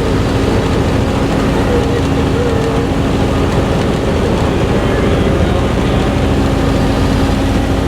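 Steady helicopter engine and rotor noise, loud and unbroken, with a constant hum running through it.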